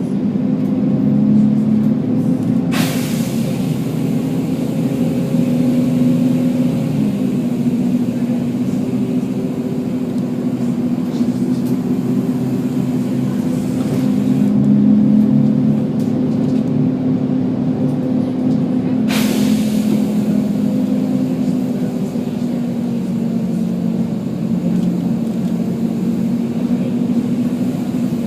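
Volvo B10BLE bus's diesel engine running steadily with its cooling fan on. Two short, sharp hisses of compressed air cut in, about three seconds in and again about nineteen seconds in.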